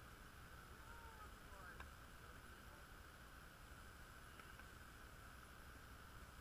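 Near silence: a steady hiss, with a few faint, indistinct sounds and one faint click about two seconds in.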